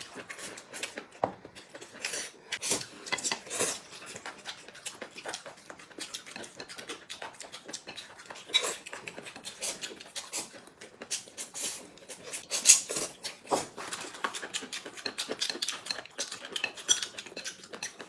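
Two people eating noodles: irregular slurps and mouth noises as noodles are sucked up and chewed, with chopsticks clicking against ceramic bowls and plates.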